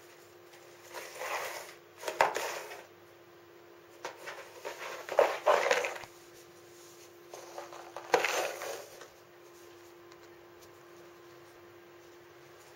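Cat batting and shoving a moulded-pulp egg carton across a wooden floor. There are four bursts of scraping and rattling with a few sharp knocks, over a faint steady hum.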